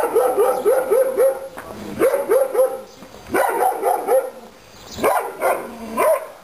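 A dog barking in quick runs of short, rising barks, about three or four a second, in about five bursts with brief pauses between them.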